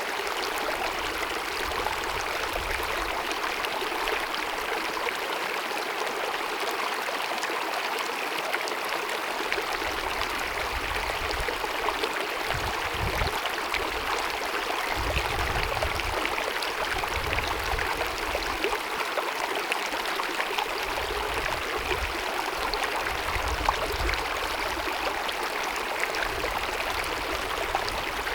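Small glacier-fed mountain stream babbling and splashing over rocks, a steady rushing water sound with fine splashes and occasional low rumbles.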